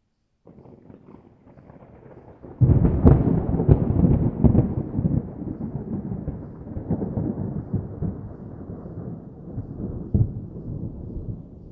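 Thunder: a faint low rumble sets in about half a second in, then a sudden loud crack at about two and a half seconds is followed by a few sharper cracks. A long rolling rumble then slowly fades, broken by one more crack near the end.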